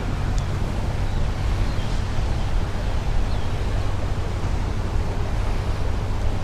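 Wind rumbling and buffeting on the microphone outdoors, a steady low noise that flickers irregularly, with a faint steady low hum underneath.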